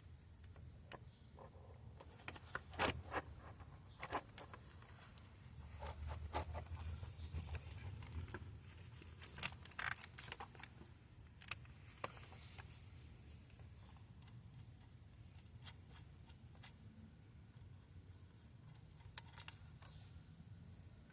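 Scattered clicks, taps and scrapes of metal parts and hand tools as a replacement starter motor is worked into place in the engine bay, busiest in the first half with one sharp click near the end.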